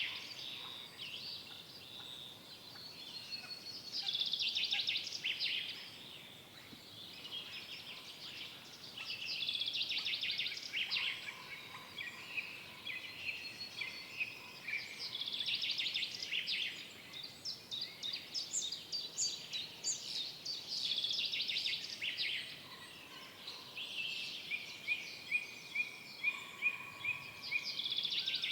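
Several songbirds singing in a forest, with rapid trilled phrases coming every few seconds from different birds. Near the end comes a run of short, evenly spaced whistled notes.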